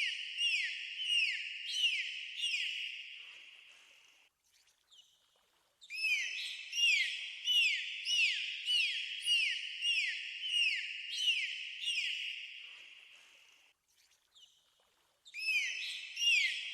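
Dolphins whistling: runs of short, quick chirps, each a brief arcing sweep in pitch, repeated about twice a second. The runs last several seconds and are split by two short pauses, one about four seconds in and one near the end.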